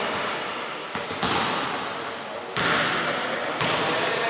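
Basketball bouncing on a wooden court, with sneakers squeaking on the floor: a short high squeak about two seconds in and another near the end.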